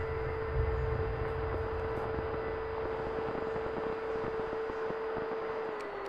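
The 64mm electric ducted fan of an FMS F-35 Lightning RC jet whining steadily in flight, heard from a camera on the airframe, with wind rumbling on the microphone. The whine drops slightly in pitch near the end.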